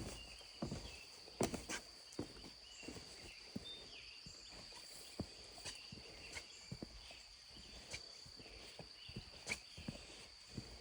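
Irregular footsteps on the ground, a few sharp steps now and then among softer ones. A steady high-pitched whine and faint short chirps run behind them.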